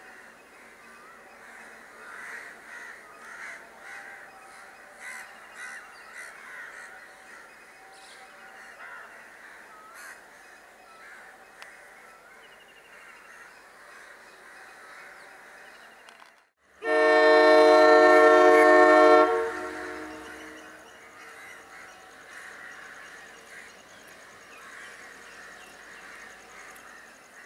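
Crows cawing, then about 17 seconds in a train horn sounds one loud, steady blast of about two and a half seconds, the loudest sound here, before the crows carry on.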